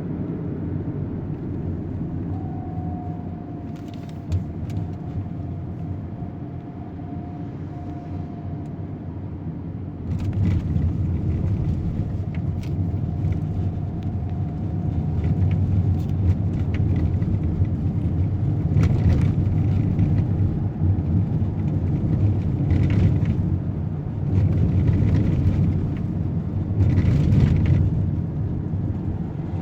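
Low rumble of road vehicles, swelling several times in the second half, with a faint steady whine through the first half.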